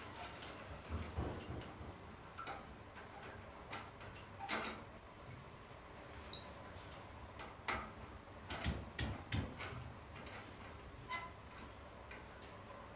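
Small, irregular metallic clicks and taps as a screwdriver works the screws holding a brass clock dial plate to its pillars, with metal tapping on brass. There is a busier run of clicks about two thirds of the way through.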